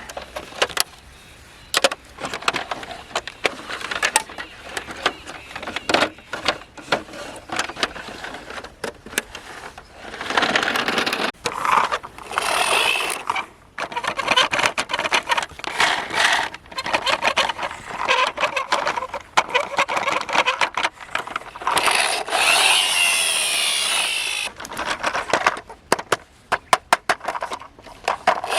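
Toy model vehicles being handled: many quick clicks and knocks, with two longer stretches of scraping or rubbing.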